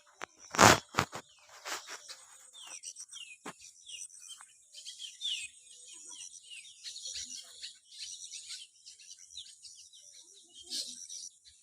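Small birds chirping: many quick, short, downward-sliding chirps repeating throughout. A loud sharp bump sounds about half a second in.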